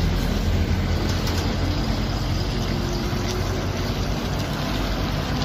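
Heavy diesel truck engines running steadily at low revs as trucks move slowly close by.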